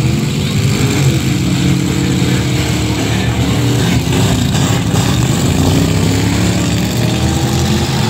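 Several race trucks' engines running hard together, their pitches rising and falling as they accelerate and lift around the track.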